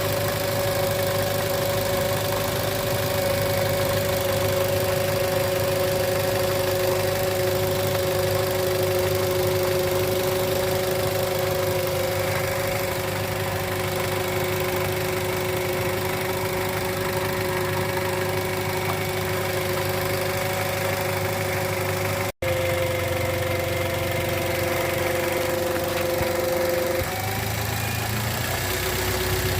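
Toyota Avanza 1.3-litre engine idling with a steady whining howl from its alternator. The whine cuts out near the end while the engine keeps running, which points to a faulty alternator.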